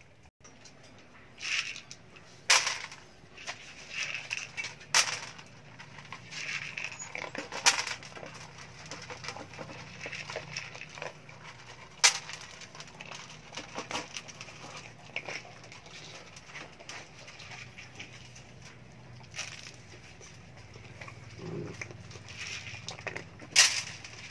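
Dogs eating kibble and rice from a metal tray: chewing and crunching with scattered sharp clicks and knocks.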